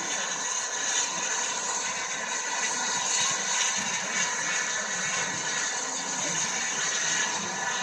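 Steady hiss with a low mechanical rumble from the Bulleid West Country class steam locomotive Eddystone standing in steam while it is turned on a turntable.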